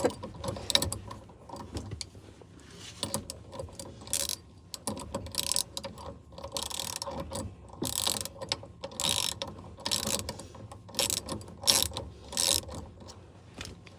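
Hand ratchet wrench clicking in short, irregular strokes as it runs a bolt into freshly re-tapped threads on a Jeep's steering column.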